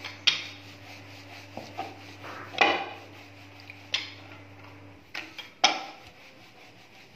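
Wooden rolling pin rolling and rubbing over dough on a round wooden board, with four sharp wooden knocks as the pin is set down and pushed. A low steady hum stops about five seconds in.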